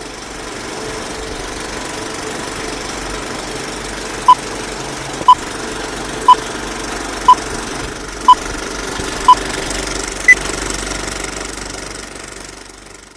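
Old-film countdown sound effect: a steady film-projector clatter under seven short beeps one second apart, six at one pitch and the last one higher. The whole fades out near the end.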